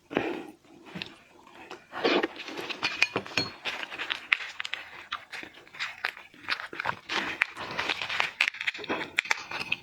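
Close-miked eating of raw shellfish: wet chewing and sucking with frequent mouth clicks and small crunches.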